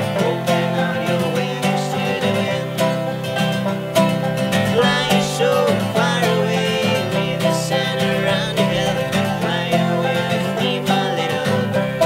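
Acoustic guitar and banjo playing together in a bluegrass-style folk song, the banjo picking quick notes over the guitar's chords.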